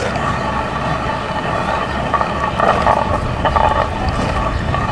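Hand-turned stone quern grinding dried corn kernels: a steady, rough stone-on-stone grinding noise.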